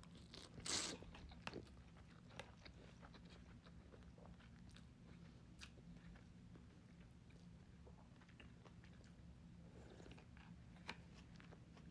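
Faint close-up eating sounds of ramen being eaten with a fork: a brief rush of noise about a second in, then quiet chewing with scattered small mouth clicks.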